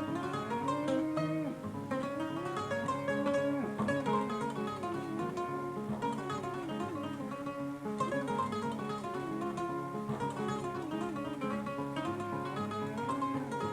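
Kora, the West African 21-string harp-lute, played solo in a quick, rippling run of plucked notes over a repeating cyclic figure.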